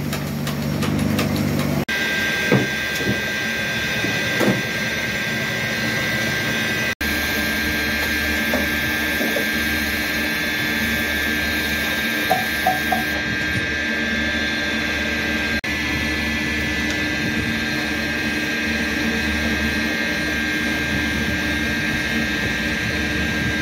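Electric motor of a motorcycle cylinder boring machine running steadily with a constant whine, with a few light metal knocks as a cylinder is handled and set in it.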